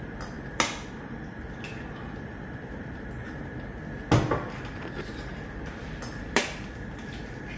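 Kitchenware being handled at a gas stove: three sharp knocks or clacks, the loudest about halfway through, over a steady low hum with a faint high whine.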